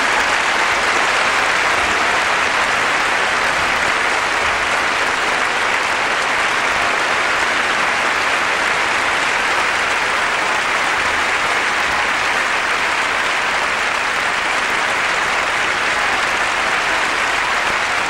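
Large audience applauding at the end of a song: dense, steady clapping with no music.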